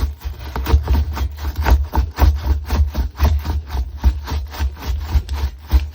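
Scrub brush scrubbing the dirty inside of a washing machine in quick back-and-forth strokes, about four to five a second.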